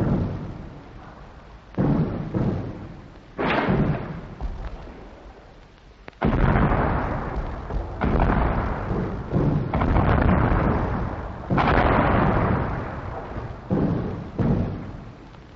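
British artillery and mortar barrage: heavy booms at irregular intervals of one to three seconds, each dying away in a long low rumble.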